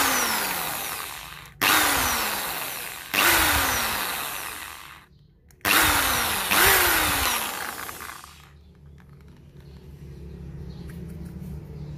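Electric drill boring into a hard plastic suction-cup mount in five short runs over the first eight seconds or so; each run starts abruptly with a whine that falls in pitch as it goes.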